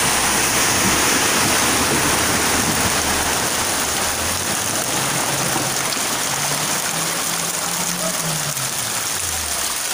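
Heavy rain and floodwater rushing along a street, a steady loud wash of water. A car drives through the flood in the first few seconds, its wheels throwing up spray, then moves away.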